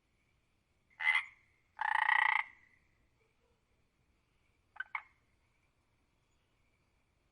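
Frog croaking: a short croak about a second in, a longer croak right after it, then two quick clipped croaks near the five-second mark. A faint steady high tone runs underneath.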